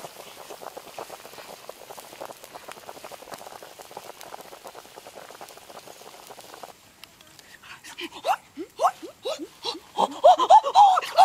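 Whole chickens boiling hard in a wok of water, a dense rapid bubbling. After it cuts off, a person gives short gasping cries that grow loud and rapid over the last second or so.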